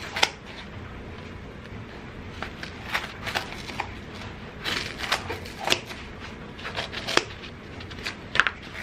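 Scissors snipping through a natural sea sponge, a series of irregular cuts.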